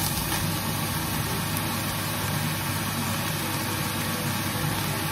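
Ground pork frying in a pan with a steady sizzle as diced courgettes are tipped in, over a steady low hum.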